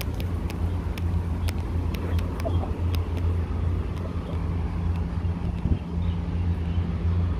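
Steady low rumble of road traffic, with light footsteps on a paved walkway about twice a second that fade after about three seconds.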